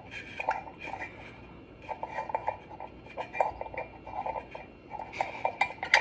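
Light bulb and fingers clinking and scraping inside a ceramic wax warmer in irregular clusters of small taps, as a bulb that won't go in is worked at, trying to seat it in its socket.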